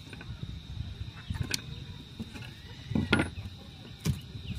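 Wooden deck boards of a small wooden boat knocking and scraping as a board is lifted off the fish hold: a few separate knocks, the loudest about three seconds in.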